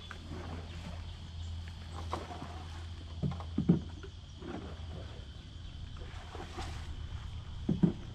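A few short, dull thumps of a fish and plastic bags being handled on the ground: a cluster a little after three seconds in and another near the end, over a steady low rumble and a faint high steady drone.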